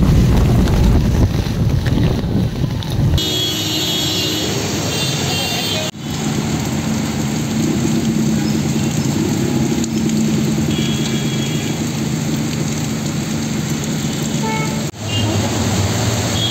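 Street sound of heavy rain and traffic on flooded city roads, in several clips cut together. The first three seconds hold a heavy low rumble of wind on the microphone; after that come steady rain noise and running vehicle engines.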